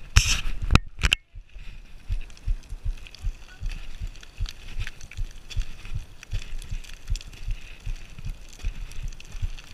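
Footsteps climbing a loose shale slope, picked up through a chest-mounted camera: steady dull thumps a little over two a second, with faint crunching of the stone fragments underfoot. A brief loud scraping noise with sharp clicks comes in the first second.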